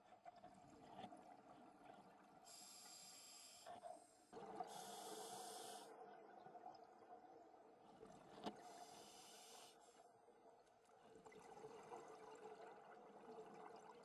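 Faint underwater breathing of a scuba diver: three hissing breaths through the regulator, each about a second long, a few seconds apart, over a low steady background noise.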